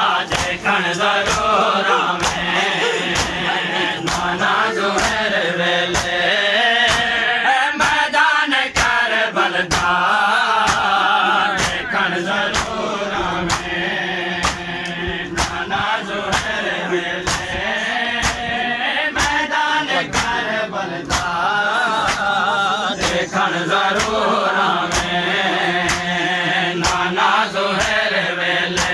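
Men chanting a noha, a Shia mourning lament for Imam Hussain, in unison as a group, led by a reciter. Under the voices runs a steady beat of hand strikes on the chest (matam), about two a second.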